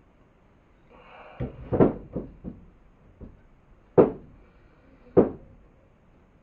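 Hard knocks and clunks of objects being handled and set down: a quick run of several knocks about a second and a half in, then single sharp knocks about four and five seconds in.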